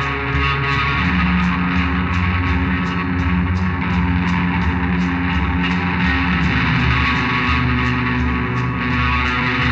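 Live rock band playing: electric guitars over sustained low bass notes, with a steady beat.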